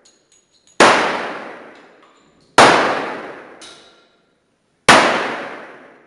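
.45 ACP pistol shots on a firing line: three shots about two seconds apart, each a sharp crack that rings out in a long echo. Faint light clicks come between them.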